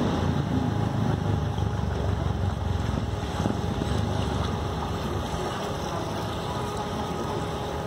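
Canal tour boat under way: a steady low engine rumble with the wash of water, easing slightly past the middle.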